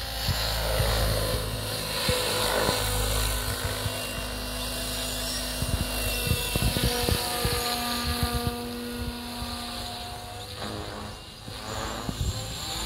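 Electric radio-controlled Hughes 500E scale helicopter on Mikado Logo 690 SX V2 mechanics in flight: the steady whine of its brushless motor and gears over the whoosh of the rotor blades. The pitch of the whine shifts as it manoeuvres, with a rapid sweep near the end.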